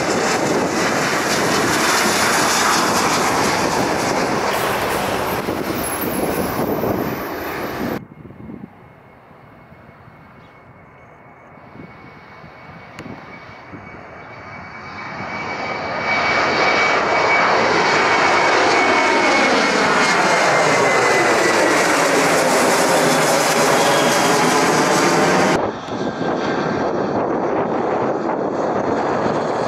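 Boeing 737-800 jet engines at takeoff thrust: a steady, loud roar as one accelerates down the runway. After a sudden cut, a second 737 climbs out; its roar swells from quiet to loud with a high whine that dips slightly as it passes. Near the end there is a cut to the jet noise of an Airbus A319 on approach.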